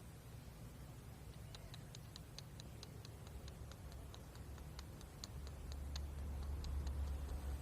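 Eurasian tree sparrow giving a rapid series of short, sharp chirps, several a second. A low rumble comes in about five seconds in.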